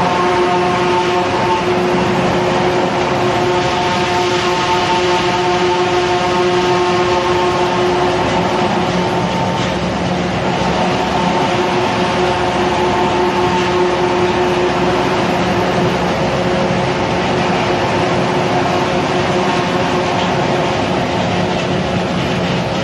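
Industrial straw shredder and its feed conveyor running under load, chopping crop straw: a loud, steady mechanical noise with a few held hum tones that weaken about halfway through.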